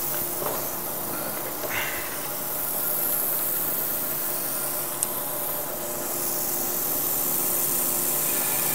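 Metal lathe running while a hand-ground high-speed-steel face trepanning tool cuts a ring groove into the end face of the spinning bar, under a steady hissing coolant spray and a low motor hum. A single sharp tick about five seconds in.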